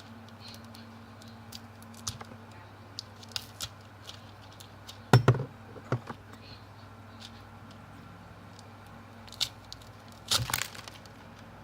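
Tightly sealed plastic packet being torn and crinkled open by hand: scattered crackles and small clicks, with two louder sharp rustles about five seconds in and near the end.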